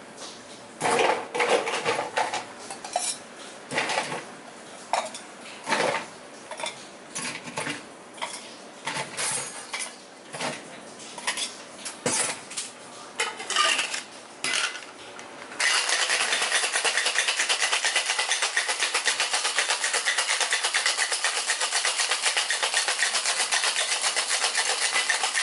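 Ice cubes clinking and metal shaker tins knocking as ice is scooped into a tin. About sixteen seconds in, a tin-on-tin cocktail shaker is shaken hard, ice rattling fast and evenly inside the metal for about ten seconds.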